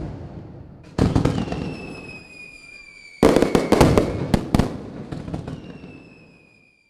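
Fireworks bursting and crackling: a bang about a second in, then a cluster of sharp cracks a couple of seconds later, each followed by a thin whistle falling slowly in pitch, fading out near the end.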